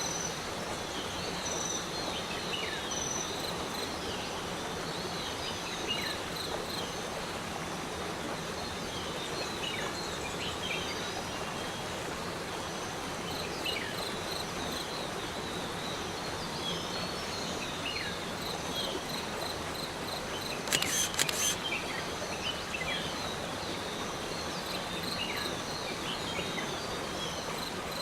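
Steady rushing of the Arvalem waterfall in full monsoon flow, with a thin high insect tone and scattered short high chirps over it. A brief cluster of clicks comes about three quarters of the way through.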